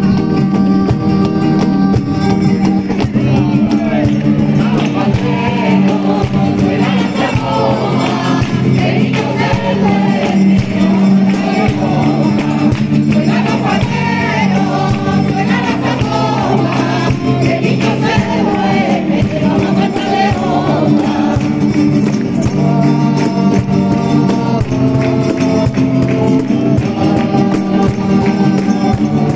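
Group of voices singing together in a flamenco-style Christmas song, accompanied by two strummed acoustic guitars and rhythmic hand clapping.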